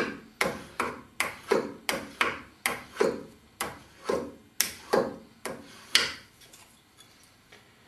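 Hardened steel burnisher stroked back and forth over the flat face of a steel card scraper, about sixteen quick metal-on-metal strokes at two to three a second, stopping about six seconds in. This is the burnishing pass that compacts the steel along the scraper's long edge before its hook is turned.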